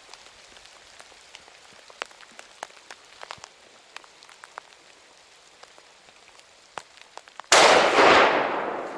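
A single .30-06 hunting rifle shot about three quarters of the way in: a sudden loud crack that echoes and dies away over more than a second. Before it, only scattered faint ticks and crackles.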